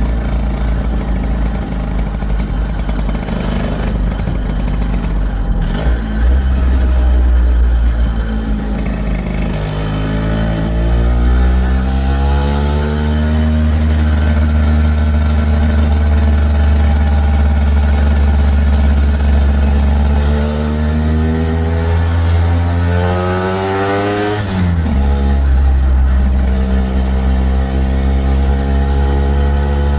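1964 Lambretta Series 3 scooter's single-cylinder two-stroke engine running on the road. Its pitch rises as it accelerates about a third of the way in, then holds steady. Near the end it climbs steeply and then drops suddenly.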